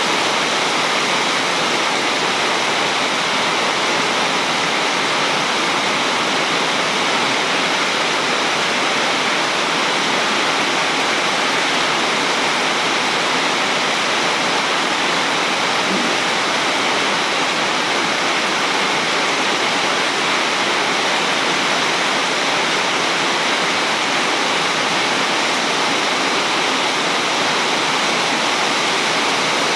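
Heavy rain falling as a steady, unbroken downpour.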